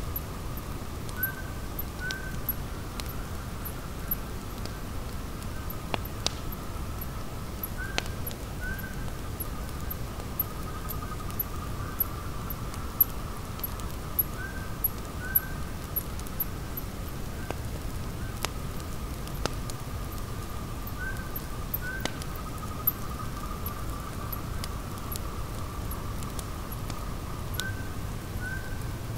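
Wood campfire crackling, with irregular sharp pops over a low rumble. Behind it runs a steady outdoor chorus of insects and a two-note animal call repeating about every seven seconds.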